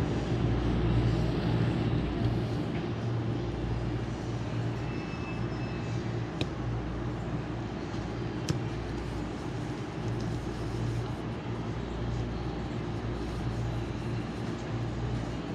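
Steady machine-like noise with a strong low hum, and two sharp clicks about two seconds apart near the middle.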